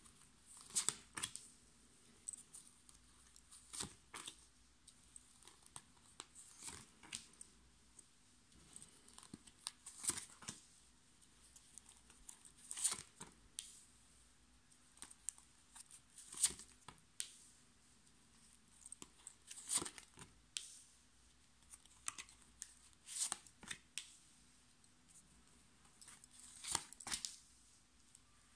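Tarot cards drawn from the deck and laid one by one onto a cloth-covered table: a crisp snap and slide about every three seconds, nine times, with smaller ticks of handling between.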